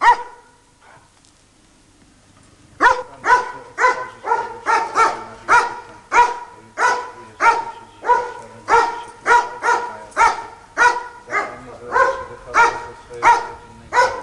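Medium-sized black-and-tan dog barking: one bark at the start, then after a pause of nearly three seconds a steady run of barks at about two a second.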